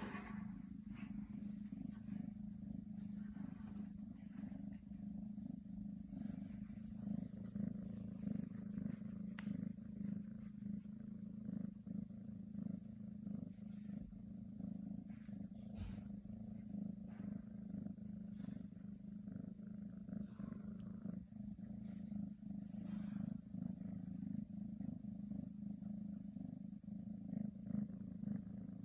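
A Scottish Straight cat purring steadily in a low, continuous rumble.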